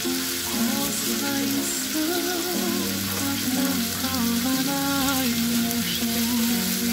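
Chicken pieces sizzling in a frying pan as they are stirred and turned with a slotted spatula, under background music.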